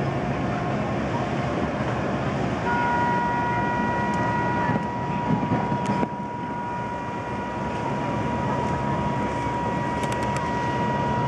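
Horns of many fishing boats sounding together, with low horn notes throughout. About three seconds in, a long, steady higher horn joins them and holds on.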